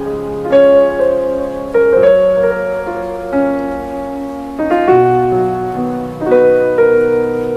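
Background piano music: slow chords, each struck and left to fade, a new one every second or two.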